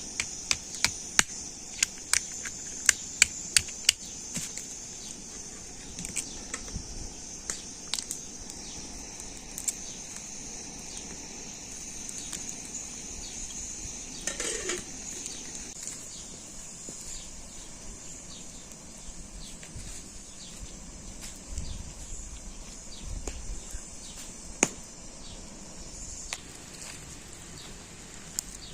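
Steady high-pitched insect chorus, with a quick run of sharp knocks in the first four seconds, scattered clicks after, and one short falling call about halfway through.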